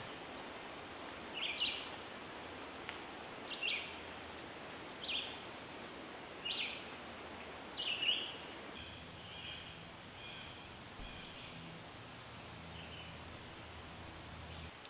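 Woodland birds calling: a short, sharp, falling call repeated five times about every one and a half seconds, two thin rising whistles in between, then a softer chattering phrase over a steady background hiss.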